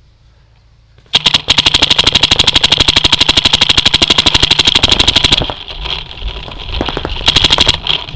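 Paintball marker firing a rapid, evenly spaced string of shots for about four seconds, then stopping. A second short burst follows near the end.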